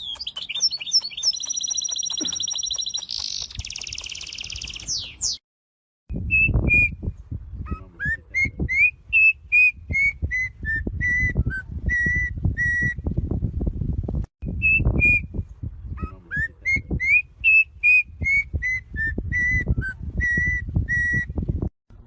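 Songbird calls: fast high trills for the first few seconds, then after a brief break a run of clear whistled notes that rise and then step down, heard twice over a low rumbling noise.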